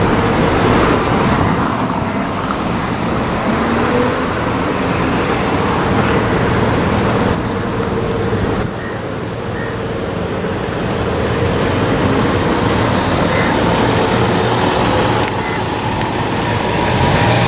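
Road traffic, a steady wash of passing vehicle noise.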